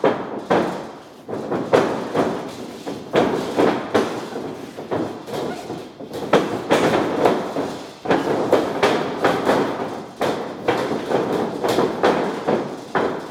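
Light sparring: irregular thuds of gloved punches and kicks landing on gloves and arms, mixed with bare and padded feet stepping and thumping on the boxing-ring canvas.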